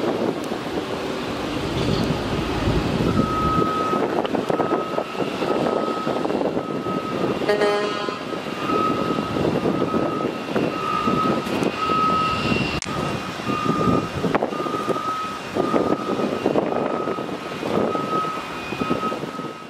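Regional jet's rear-mounted turbofan engines running as it taxis: a steady, slightly pulsing high whine over a broad rumble. A short beep sounds about seven and a half seconds in.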